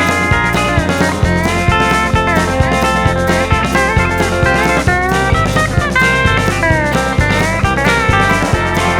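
Background music: an instrumental break of a country-rock song, with electric guitar lead over bass and a steady drum beat.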